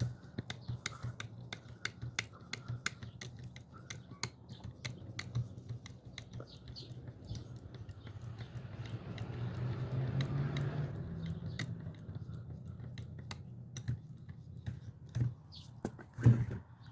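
Irregular sharp clicks and taps of tools and metal parts being worked on a hydraulic jack as it is tightened up, over a low steady hum, with a soft rushing swell about halfway through.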